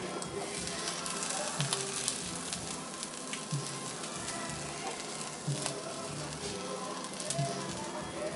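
Ground turkey burger patty sizzling and crackling in a nonstick skillet, frying on in the heat of an electric burner that has just been switched off.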